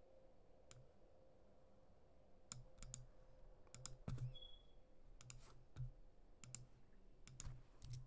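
Faint, irregular clicking at a computer, many clicks in quick pairs, with one louder knock about four seconds in.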